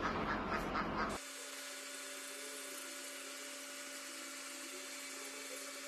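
A steady mechanical whine with two held tones and a hiss above them, from the drive of a high-speed-rail girder transporter-erector running as the machine moves forward. It comes in abruptly about a second in, after a rapid run of short repeated sounds, about four a second.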